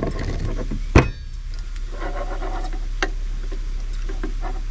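A glass pickle jar is capped and set down on a table with one sharp knock about a second in. This is followed by light clicks and scrapes of chopsticks mixing food in a stainless-steel bowl, with a second small knock partway through.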